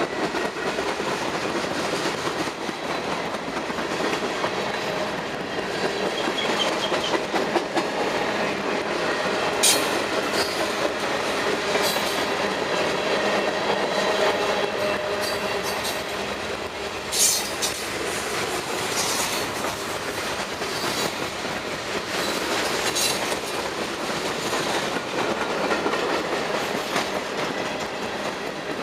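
Freight train cars rolling past at speed: a steady rumble of steel wheels on rail, with rhythmic clacking over the rail joints and several sharp metallic clanks scattered through.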